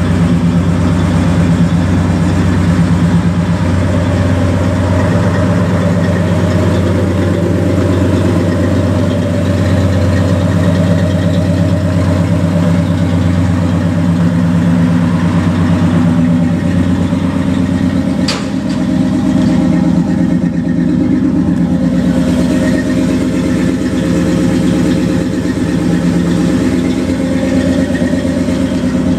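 1970 Dodge D100 pickup's 318 cubic-inch V8 idling steadily, with the automatic in park or neutral.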